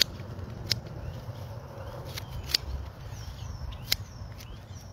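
Small short-bladed scissors snipping through a bunch of fresh parsley: about five sharp snips, unevenly spaced.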